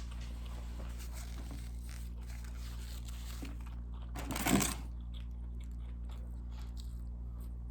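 Close-miked chewing and mouth sounds from eating fast food: faint wet clicks over a steady electrical hum, with one short, louder noisy crunch or bite about four and a half seconds in.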